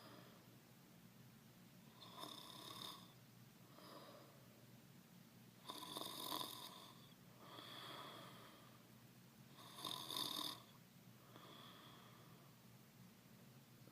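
Quiet, slow snoring: three breath cycles about four seconds apart, each a louder snore followed by a softer breath.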